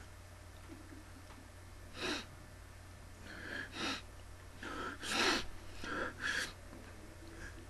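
A man making a run of short, breathy vocal noises instead of words (gasps, hisses and snorts), starting about two seconds in, with the longest and loudest about five seconds in. A steady low hum runs underneath.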